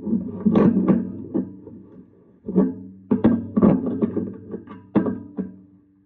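Background music: a run of plucked guitar notes, pausing briefly about halfway through.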